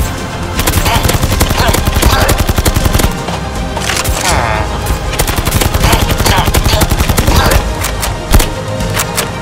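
Two long bursts of rapid automatic gunfire from an X-Shot gel blaster, then a single louder bang near the end, over background music.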